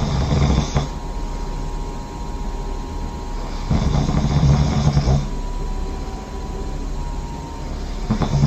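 A person snoring loudly while asleep, one snore about every four seconds. Each snore lasts about a second and a half.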